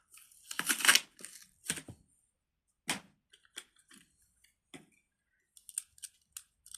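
Plastic fidget toys being handled: a short rustling scrape about a second in, then scattered sharp clicks that come quicker near the end.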